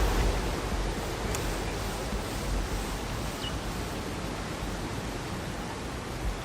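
Wind blowing across the microphone: a steady rushing noise with a low rumble. There is a faint click about a second in.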